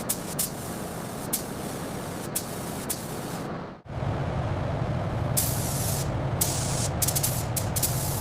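Compressed-air spraying hiss in several short stretches, with scattered clicks and abrupt cuts between takes.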